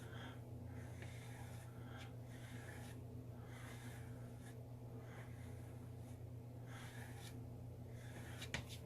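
Small-tined powered beard comb drawn through a beard in repeated soft brushing strokes, about one a second, over a steady low hum. A sharp click near the end.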